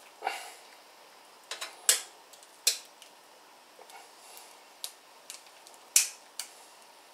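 Sharp metallic clicks and clinks of a sausage stuffer and its parts being handled on a stainless steel worktable while it is loaded with casings. The clicks are scattered and uneven, with the loudest about two seconds in and about six seconds in.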